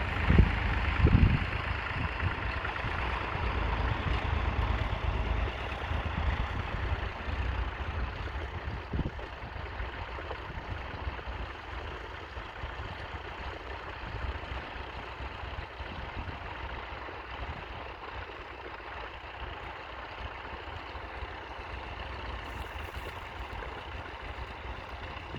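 A 1953 Ferguson TEF20's 2.1-litre four-cylinder diesel engine running steadily while the tractor pulls a mounted plough, fading over the first dozen seconds as it moves away. A couple of low thumps come in the first second or so.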